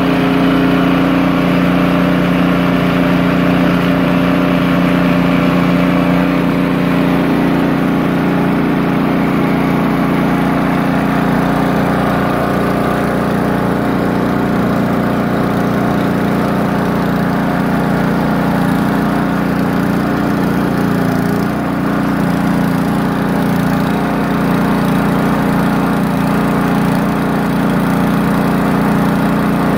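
Poulan Pro snowblower's small single-cylinder engine running steadily, its note shifting slightly about seven seconds in. It holds an even speed without surging, now that the loose carburettor mounting nuts have been tightened.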